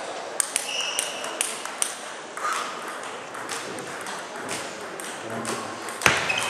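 Celluloid table tennis ball clicking repeatedly off the table and rackets with a brief high ping, with a sharper, louder cluster of hits about six seconds in as a serve opens a rally.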